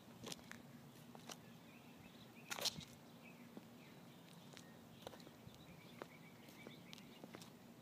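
Faint footsteps: scattered light clicks and one louder scuff about two and a half seconds in, over a faint steady hum.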